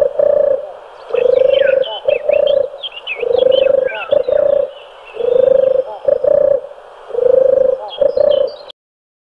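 Dove cooing: a low two-part coo, a longer note then a shorter one, repeated about every two seconds, with small birds chirping higher above it. It cuts off suddenly near the end.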